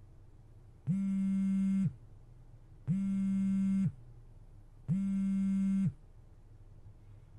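Smartphone vibrating with an incoming call: three buzzes of about a second each, two seconds apart.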